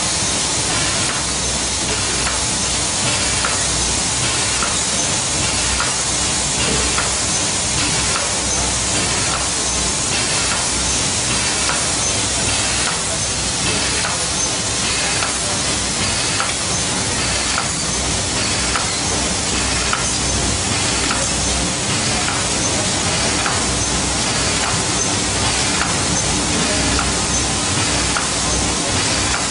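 Sheet-fed UV varnish coating machine running: a steady hiss of air and machinery, with a faint, regular ticking as the sheets are fed through.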